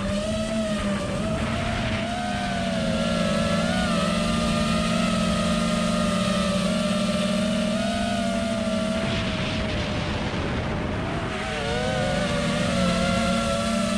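Brushless motors of a 5-inch FPV quadcopter (2008-size 1950 kV motors on 6S) whining, heard from the onboard camera, their pitch wavering with throttle. About nine seconds in the whine drops away into a rush of air, then climbs back up in pitch a couple of seconds later.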